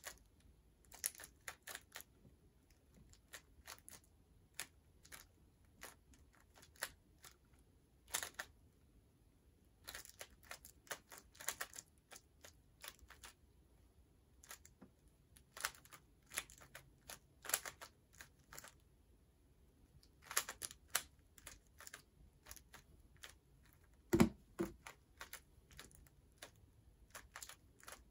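Plastic twisty puzzle being turned fast: irregular clicks and clacks of the pieces, in quick runs with short pauses between them, with one louder clack about 24 seconds in.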